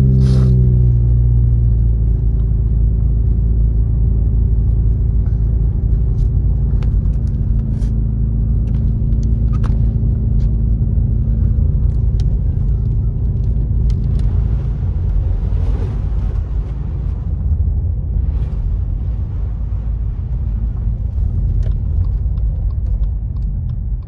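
Car driving on snow- and ice-covered streets, heard from inside the cabin: a steady low rumble of engine and tyres. An engine drone is strongest at the start and fades over the first couple of seconds, and a louder hiss of tyres on the snowy road rises for a few seconds around the middle.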